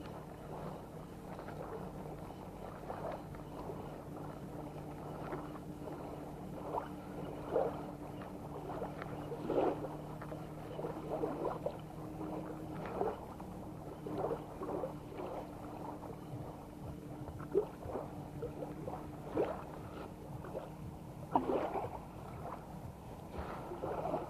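Irregular small splashes and lapping water at the shoreline as a small fish on light spinning tackle is played and drawn in to the beach, over a faint steady low hum.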